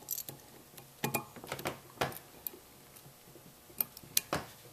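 Irregular sharp metallic clicks and taps of a screwdriver tip against the small steel parts of a Smith & Wesson Model 29-2 revolver frame, as the cylinder stop spring is pressed down onto its pin. The sharpest clicks come near the end.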